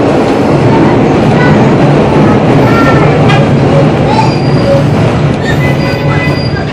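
Peter Witt streetcar running on its rails, heard from aboard: a loud steady rumble with brief high wheel squeals, easing near the end as the car slows.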